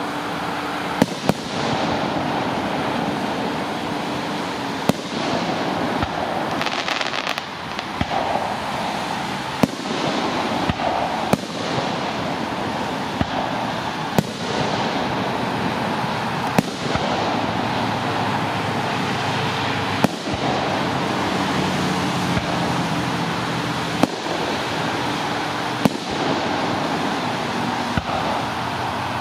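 Aerial fireworks shells bursting overhead: about a dozen sharp bangs a few seconds apart over a continuous rushing background.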